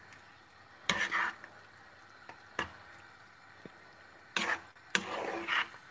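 A spoon stirring and scraping a runny egg, onion and ham mixture in a non-stick frying pan, heard as a few short, separate strokes: about a second in, around two and a half seconds, and a group near the end.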